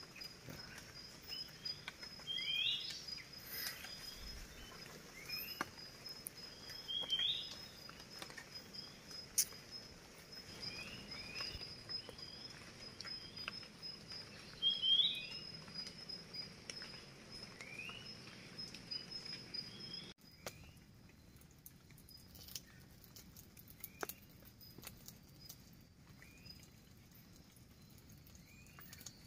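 Wet tropical forest at dawn: a bird repeats short rising chirps about once a second, a few of them louder, over a steady high insect trill that cuts off about two-thirds of the way through. Scattered light drops from the lingering drizzle patter throughout.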